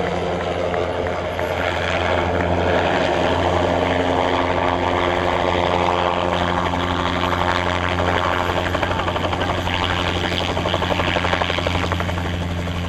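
Helicopter in flight, its rotor and engine making a steady low drone that grows louder through the middle and eases near the end.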